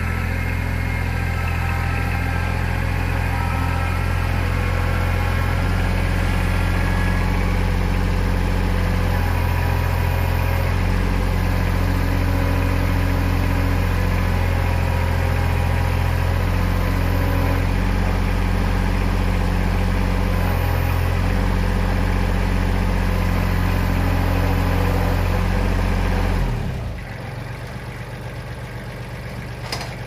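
Tractor engine running while its front loader handles a log, the engine note shifting in steps as the hydraulics take load. Near the end the engine sound falls away sharply.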